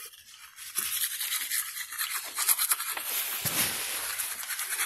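Manual toothbrush scrubbing teeth in quick, repeated back-and-forth strokes, starting about a second in.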